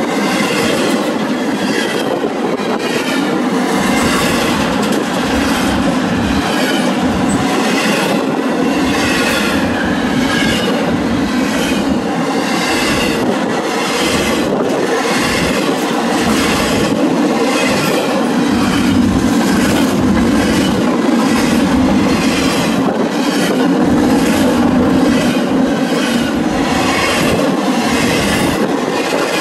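Canadian Pacific intermodal train's double-stack container well cars rolling past at close range: a loud, steady rumble of steel wheels on rail, broken by repeated clicks as the wheels cross rail joints.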